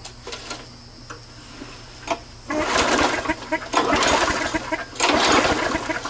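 A push mower's small engine pulled over on its recoil starter, beginning about two and a half seconds in: several pulls, each about a second of fast cranking, and the engine does not catch. It is failing to start, which the owner puts down to a bad primer bulb.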